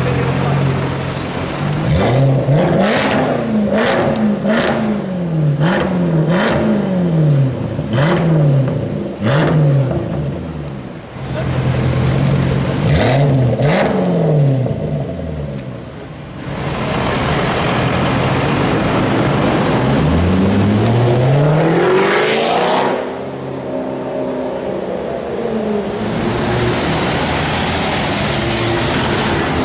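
Range Rover Sport with a custom exhaust, revved hard in a string of quick blips, each rising and falling back to idle. About twenty seconds in it accelerates away with one long rising engine note.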